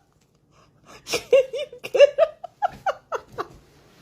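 A person laughing in a run of short, high-pitched bursts, starting about a second in.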